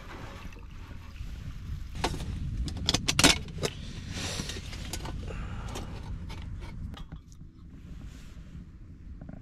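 Metal parts of a wood-burning stove clinking and knocking as they are handled during setup: a cluster of sharp clanks about two to four seconds in, the loudest just past three seconds, then a few lighter clicks. A steady low rumble sits underneath.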